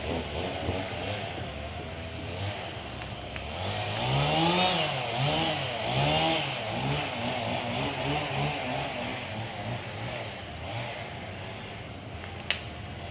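Two-stroke chainsaw running at idle, then revved up and down several times in quick succession around the middle before settling to a steadier run. It is warming up before the cut. A single sharp click comes near the end.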